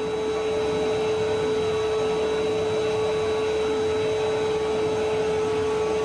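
Restored 1970 vacuum cleaner running steadily: a constant motor whine over a rush of air.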